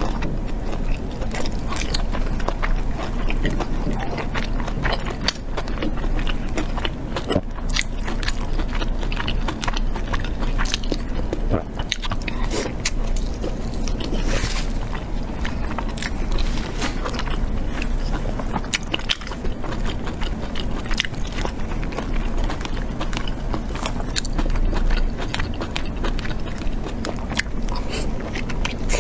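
Close-miked chewing and biting of braised pork, a steady run of small mouth clicks with no pauses.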